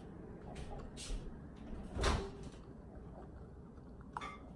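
A few faint knocks, with one louder thump about two seconds in and a sharp click near the end.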